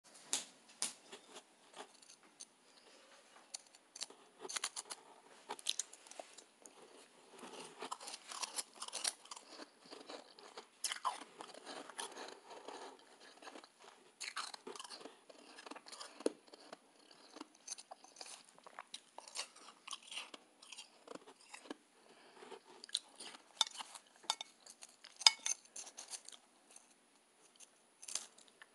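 Soft, fluffy shaved ice being chewed and crunched: a continuous run of irregular small crunches and crackles.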